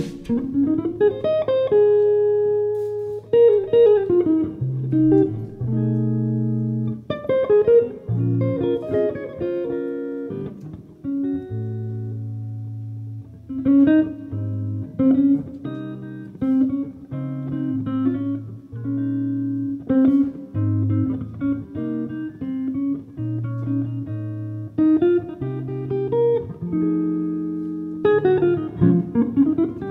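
Guitar and electric bass playing an instrumental passage without singing: picked notes and held chords over a moving bass line.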